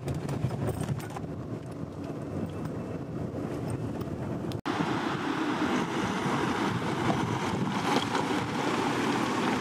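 Off-road vehicle driving, a steady low rumble with wind noise on the microphone. About halfway through the sound cuts off abruptly and gives way to a louder, brighter rushing hiss.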